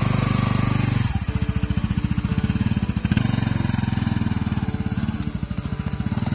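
Honda Winner X motorcycle's single-cylinder 150 cc engine running with a quick, even firing rhythm as the bike rides off along a dirt track. It gets somewhat quieter near the end as it moves away.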